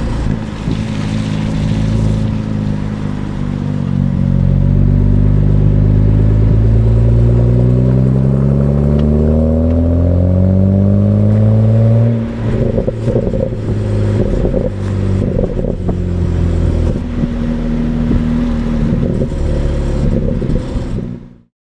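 2008 BMW 335i's N54 twin-turbo straight-six on its stock exhaust, revving with a steadily rising pitch under acceleration. Then, about halfway through, the throttle is lifted and the exhaust pops and crackles on the overrun until the sound cuts off just before the end.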